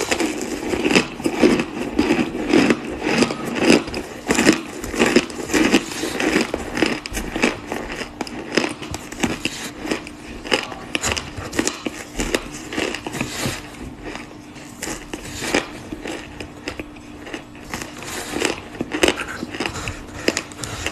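Close-miked chewing of crunchy cornstarch: a dense run of crisp crunches and crackles, thick at first and thinning out and getting quieter in the second half.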